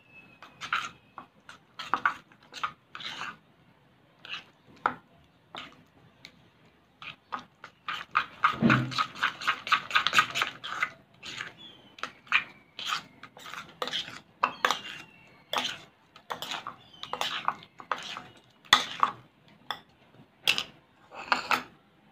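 A metal spoon clinking and scraping against a bowl while stirring thick, sticky slime mixture, in irregular strokes that grow busiest and loudest near the middle.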